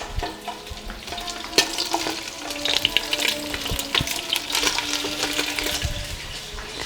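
Chicken thighs frying skin-side down in hot oil over high heat: a sizzle full of crackles and spitting pops that grows louder after about a second and a half, with a few low knocks from the pan.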